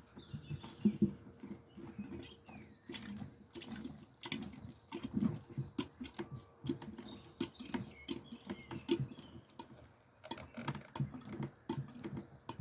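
Irregular soft clicks and knocks, several a second with a short pause near the end, from hand work on the diesel fuel line of a 2011 Ford Focus while it is being bled.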